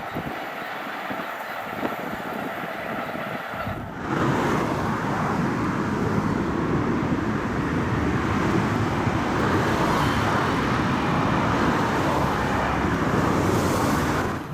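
Steady rushing noise of a passing vehicle, jumping suddenly louder about four seconds in.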